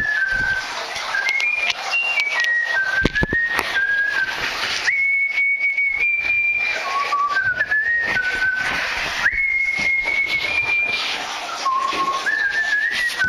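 Someone whistling a tune: one melody line of held notes stepping up and down, over a background hiss.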